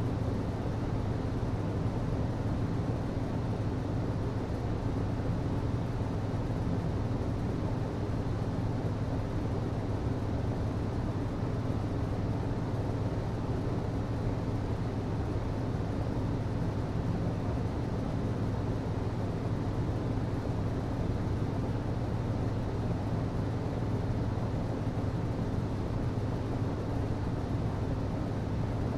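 HVAC system running steadily: a constant low hum with a rushing air noise over it, not changing in pitch or level.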